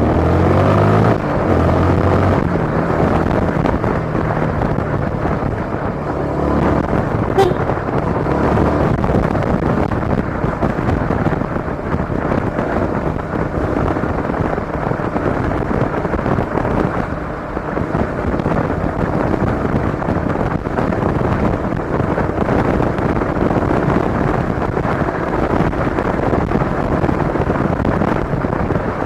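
Yamaha Sniper 155 motorcycle being ridden: the engine revs up with a rising pitch in the first couple of seconds, then steady engine, road and wind noise while cruising.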